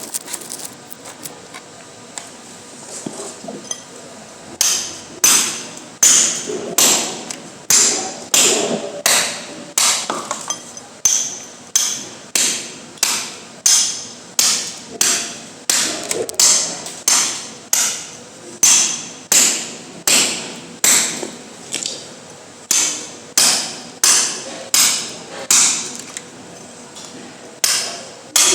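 Hand tool striking over and over in an even rhythm, about one and a half sharp strikes a second, starting about four and a half seconds in.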